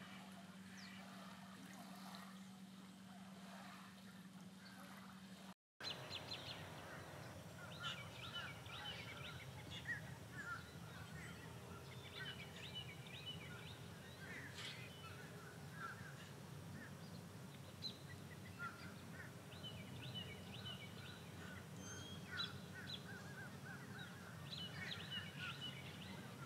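Faint outdoor ambience: a steady low hum for the first few seconds, then after a brief dropout, birds calling repeatedly in short, scattered notes over a quiet background.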